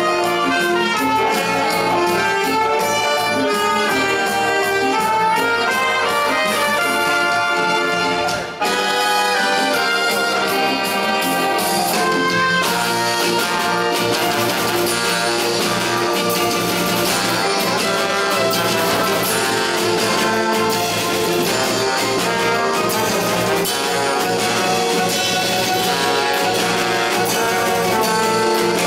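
Live brass band of trumpets, trombone, tuba and saxophone playing a loud up-tempo tune, backed by several drum kits, with a momentary drop in the sound about eight seconds in.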